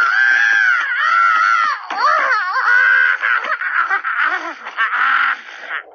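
High-pitched cartoon character voice making wordless cries, its pitch wavering and sliding up and down. It breaks into shorter, choppier sounds in the last couple of seconds.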